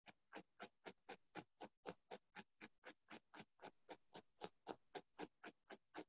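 Near silence with a faint, even ticking, about four ticks a second.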